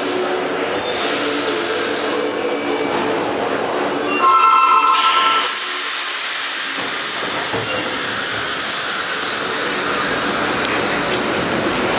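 Vintage R1/R9 subway train running on the rails, with a steady rushing wheel noise and faint held squealing tones. About four seconds in, a loud high tone of a few pitches sounds for about a second.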